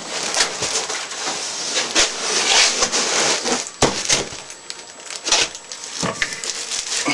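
Cardboard and packing material rustling and scraping, with repeated knocks, as a boxed mini lathe is unpacked.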